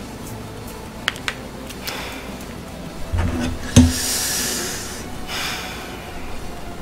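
A few small clicks, then a sharp thump a little past halfway, followed by two breathy exhalations close to the microphone.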